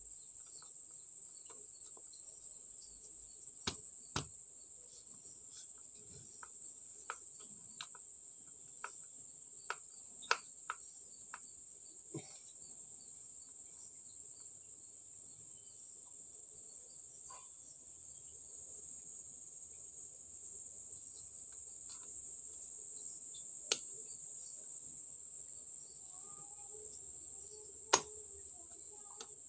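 Light scattered clicks and taps of a hand screwdriver and small wood screws against a metal hinge as the hinge is screwed onto a board, with a few sharper clicks, two of them near the end. Behind them is a steady, high-pitched insect chirring.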